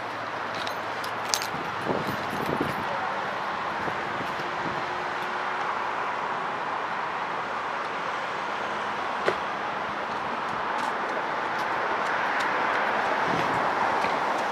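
Steady outdoor rushing noise that swells slightly in the second half, with a few light clicks.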